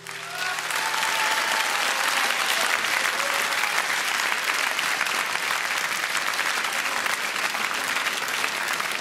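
Audience applauding after a song, breaking out within the first second and holding steady throughout.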